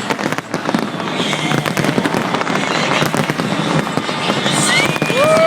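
Fireworks bursting and crackling continuously, a dense run of pops and bangs. Near the end a long pitched tone rises and then holds steady over them.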